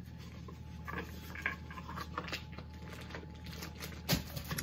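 Faint rustling and light clicks of small items and packaging being handled, with one sharp knock about four seconds in, over a steady low hum.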